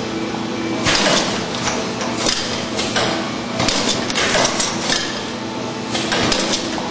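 Rotary packaging machine running: a steady mechanical hum with repeated knocks and clatter, roughly one or two a second at an uneven pace.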